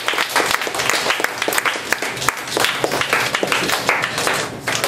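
A small audience applauding, many hands clapping at once.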